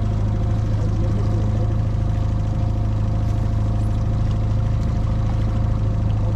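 Fishing boat's outboard motor running at a steady speed: an even, low drone that holds without change.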